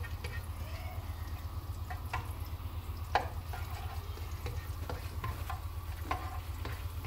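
Chopped garlic sizzling in a little hot oil in a non-stick wok, stirred with a slotted spatula that scrapes and taps against the pan now and then. The loudest tap comes about three seconds in, over a steady low hum.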